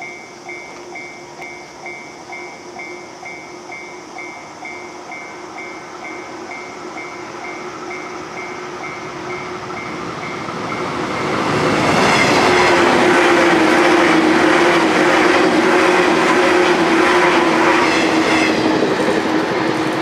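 Japanese level-crossing warning bell ringing about twice a second. About eleven seconds in, a 183/189-series electric train comes through at high speed and drowns it out: a loud rush with a fast clickety-clack of wheels over rail joints that lasts about seven seconds.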